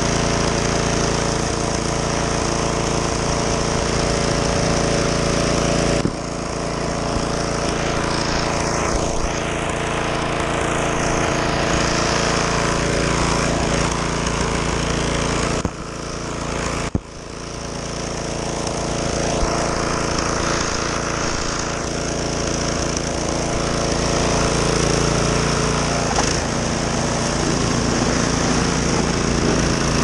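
Husqvarna ST227P two-stage snowblower's single-cylinder engine running steadily while its auger and impeller throw snow. The engine note dips suddenly about six seconds in and again around sixteen to seventeen seconds in, then climbs back each time.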